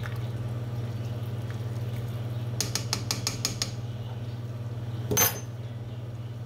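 Kitchenware clinking at a stove: a quick run of about six light clicks, then a louder ringing clank near the end, over a steady low hum.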